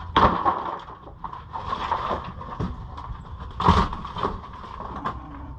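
Rotten wood framing being pried and knocked apart: irregular knocks and crunches, loudest right at the start and again about three and a half seconds in.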